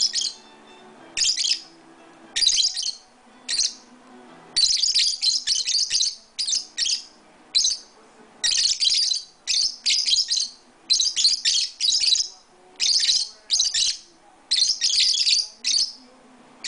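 Lovebirds giving a rapid run of shrill, high-pitched chirps and squawks, short calls coming one after another with brief gaps.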